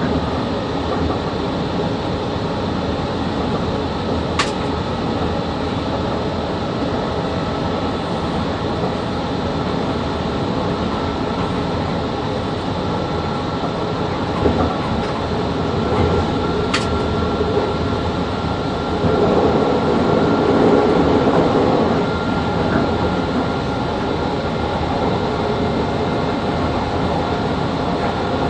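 VL80 electric locomotive running with a freight train, heard from the cab: a steady rumble of the locomotive and its wheels on the rails. Two sharp clicks about twelve seconds apart, and the rumble swells louder for a few seconds about two-thirds of the way through.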